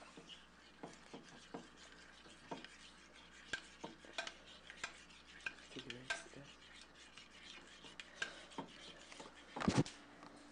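A metal spoon stirring a thick sour-cream sauce in a ceramic bowl, clinking against the bowl in short irregular taps, two or three a second. There is a louder knock near the end.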